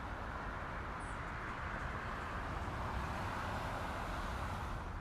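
Daytime city ambience: a steady wash of distant traffic with a low rumble, and a brief high bird chirp about a second in.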